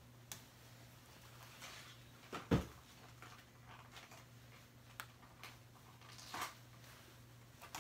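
Faint clicking and fabric rustling as a fishing vest's zipper is fumbled with and does not catch. One dull thump about two and a half seconds in, over a faint steady low hum.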